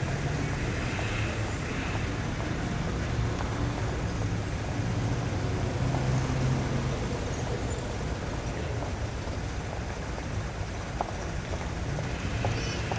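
Busy city street traffic: a steady low rumble of passing cars, buses and trucks, swelling and easing as vehicles go by.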